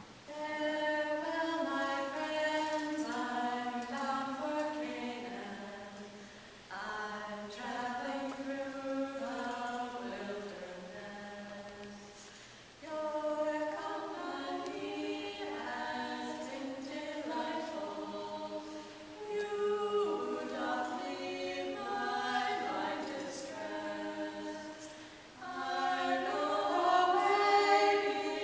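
Four women's voices singing an American folk hymn a cappella in close harmony, in phrases of about six seconds with short breaths between them. The phrase near the end is the loudest.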